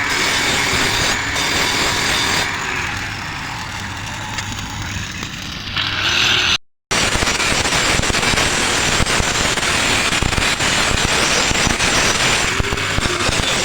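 Stick-welding (SMAW) arc crackling steadily on a fabrication joint, broken by a brief silent gap about seven seconds in.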